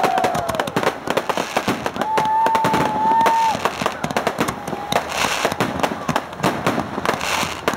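Fireworks display: a dense run of crackling pops and bangs from aerial shells, with a long steady whistle starting about two seconds in.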